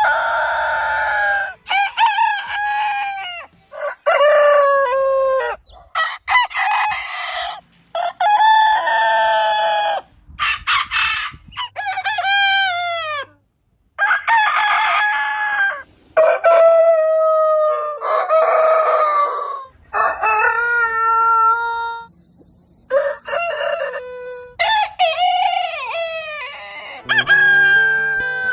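Roosters crowing, one long crow after another, each held and then falling in pitch at the end, with abrupt cuts between the crows.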